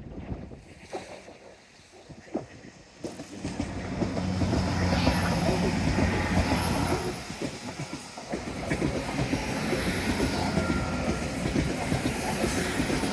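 A train passing close by on the seaside railway line, its rumble and engine hum building about three or four seconds in and running on steadily, with a thin high whine from the wheels on the rails.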